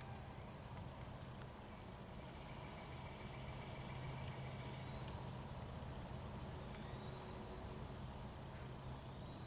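Insect calling outdoors: a steady high-pitched buzzing trill held on one pitch for about six seconds, starting a couple of seconds in and stopping abruptly over a second before the end.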